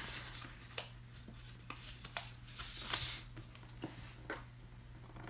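Black cardstock being folded along its score lines and its creases pressed with a bone folder: faint, scattered paper rustles and light taps.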